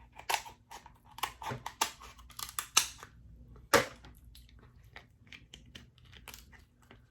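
Close-miked eating sounds of king crab legs: irregular wet clicks and crackles of chewing and handling the crab, with one louder snap almost four seconds in, then sparser small ticks.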